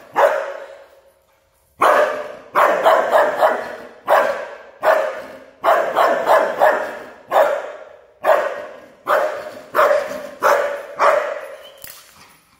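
A young Belgian Malinois barking over and over, about two barks a second, each bark echoing. There is a pause of about a second and a half near the start.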